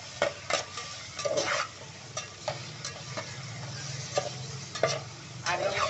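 Raw chicken pieces sizzling as they fry in oil in a metal pot, stirred with a metal slotted spoon that scrapes and clicks against the pot.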